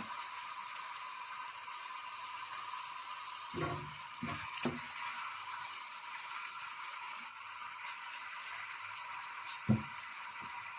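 Marinated chicken pieces sizzling steadily in hot oil in an aluminium pot, with a few soft thumps as the pieces are laid in and moved, a cluster about three and a half to five seconds in and one more near the end.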